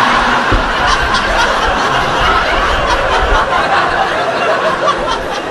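A large crowd laughing together, loud at first and dying down near the end.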